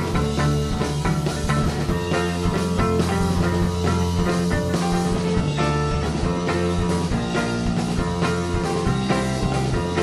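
Background rock music.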